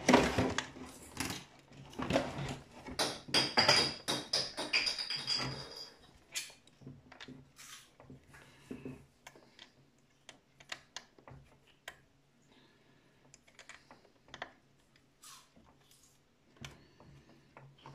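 Hands handling the plastic parts of an RC Leopard 2 tank: dense clicking, rattling and rubbing for about the first six seconds, then scattered small clicks and taps.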